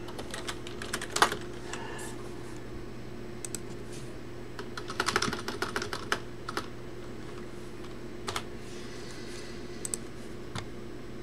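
Typing on a computer keyboard: short bursts of key clicks, a cluster near the start and another about halfway through, with a few single clicks between.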